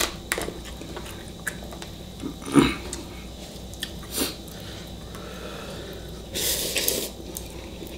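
Noodle-eating sounds: chopsticks clicking against a ceramic bowl and chewing, then a long, loud slurp of instant ramen noodles about six seconds in.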